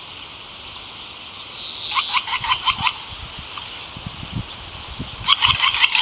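Eurasian three-toed woodpecker calling: two quick series of short, sharp notes, the first about two seconds in and the second near the end.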